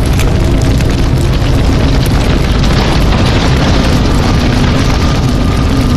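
A loud sound effect of rushing noise with a deep rumble underneath. It starts suddenly, stops abruptly about six seconds later, and almost covers the music.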